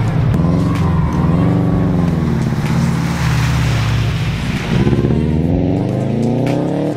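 2003 Subaru WRX's turbocharged flat-four engine revving as it drives through floodwater, the revs dropping and climbing several times and rising steadily near the end. A rush of water spray comes through about three seconds in.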